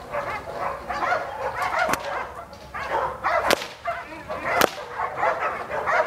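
Three sharp cracks from a dog-training stick, a second or so apart, over dogs barking in the background.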